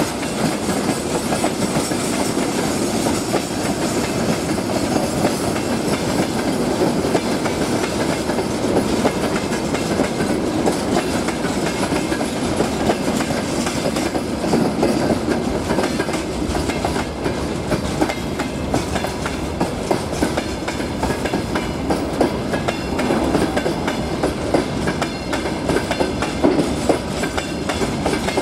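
Freight train wagons rolling past: a steady rumble of steel wheels on rail with continual clickety-clack and rattling as the tank cars and open gondola wagons go by.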